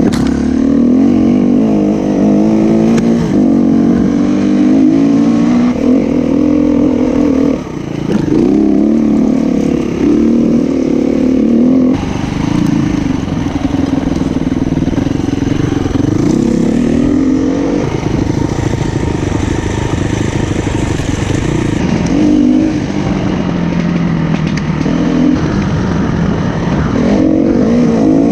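SWM 300RS enduro motorcycle's single-cylinder four-stroke engine running hard off-road, its pitch rising and falling again and again as the throttle is opened and closed. The level dips briefly about seven and a half seconds in.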